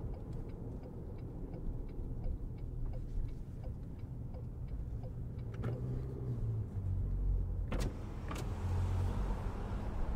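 Inside a 2023 Toyota RAV4 while driving: steady low road and engine rumble, with the turn-signal indicator ticking about three times a second until it stops about halfway through. Two sharp clicks come near the end.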